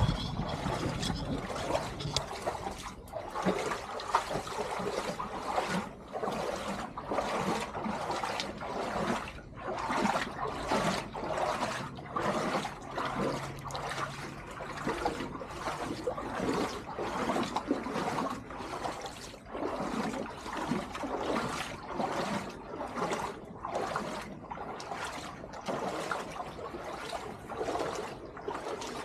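Shallow brook water sloshing and splashing in an even rhythm, about one and a half surges a second, as someone wades through it.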